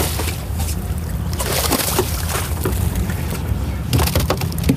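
A flounder splashing and thrashing at the water's surface as it is scooped up in a landing net, followed by knocks as the net comes over the side onto the boat's deck, over a steady low rumble of wind and water.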